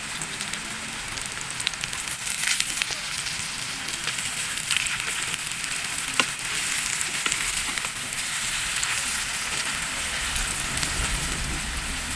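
Food frying in a pan: a steady sizzle with scattered crackles and pops.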